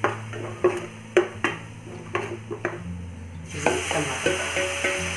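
A spoon scraping and clicking against a pan as ground spices are stirred in hot oil. About three and a half seconds in, grated tomato goes into the pan and a steady sizzle starts suddenly.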